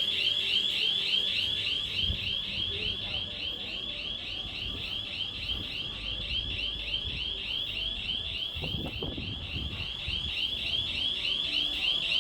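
A shop's triggered panic alarm sounding: an electronic siren with a high warbling tone that sweeps about four times a second without pause.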